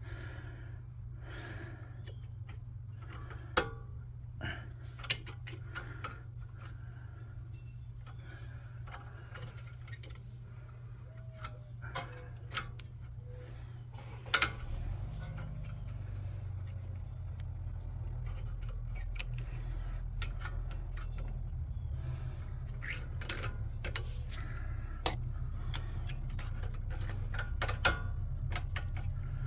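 Metal clinks and taps of tools and brake hardware being handled, a scattered string of light knocks with a few sharper ones, over a steady low hum.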